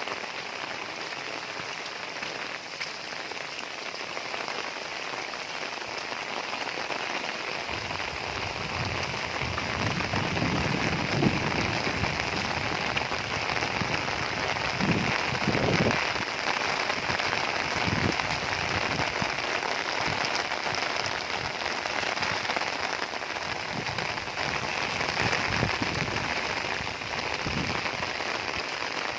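Heavy rain pouring steadily. About a quarter of the way in a low rumble swells, with a few heavier thumps, then fades again.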